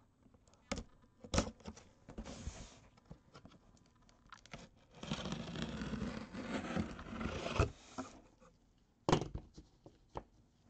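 A knife blade cutting through the packing tape along the seam of a cardboard box. There are a few sharp clicks, a short scrape, then a longer scraping slice lasting about three seconds, and one more click near the end.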